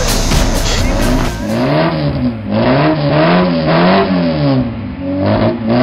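Ford Escort's engine being revved up and down again and again, its pitch rising and falling about every three quarters of a second. The first second and a half holds a louder, noisier passage before a cut to the engine.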